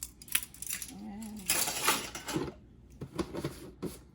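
Kitchen utensils clinking: a measuring spoon tapping against containers and a mixing bowl while salt is measured into dry ingredients. There are several sharp clinks and about a second of loud rustling in the middle.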